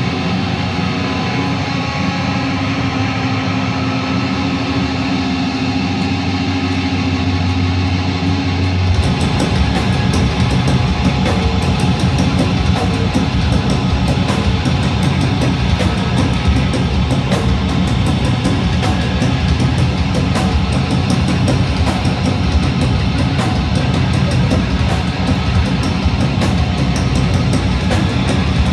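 Hardcore punk band playing live with loud distorted guitars: a held, ringing low chord for about the first nine seconds, then the drums and full band crash in at a fast, driving beat.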